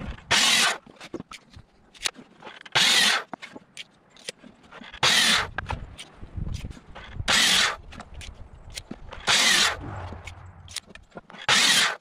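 Sliding miter saw making six short cuts through a pressure-treated 2x4, one about every two seconds, with wood knocking and clattering between the cuts.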